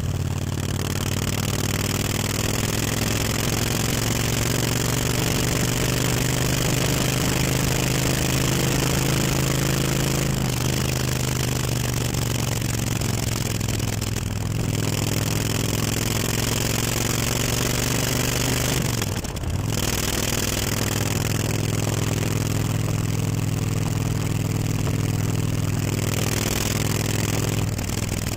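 Kawasaki VN1600 V-twin motorcycle engine running steadily at low revs through a newly fitted aftermarket exhaust. Its pitch shifts slightly a few times, with a brief dip about two-thirds of the way through.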